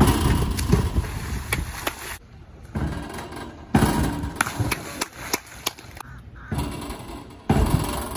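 Springboard diving: the board knocking and clattering under the divers' take-offs, and the splashes of their water entries, with voices around the pool. The sound jumps abruptly several times.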